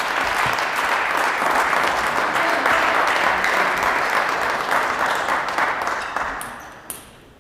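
Spectators applauding after a table tennis point, a steady clapping that dies away near the end.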